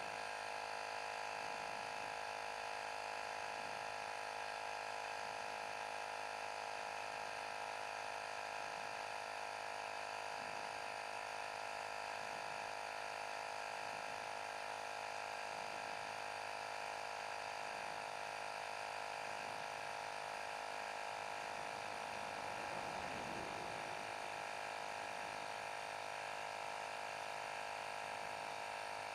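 Microstart 12 V DC portable tire inflator running steadily, its small electric compressor humming as it pumps up a tire from low pressure.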